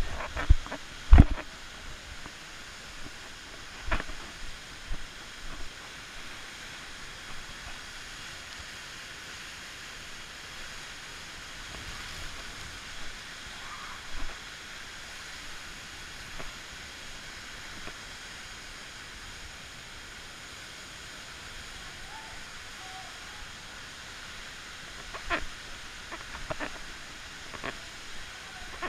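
Steady rush of Jogini Waterfall's falling water, an even hiss, broken by a few sharp knocks, the loudest about a second in and a small cluster near the end.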